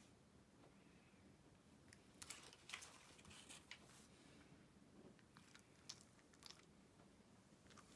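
Faint crunching and clicking of a Shiba Inu chewing a dry biscuit treat, in a few short spells with quiet between.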